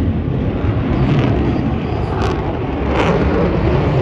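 An aircraft in flight: a steady, loud engine rumble.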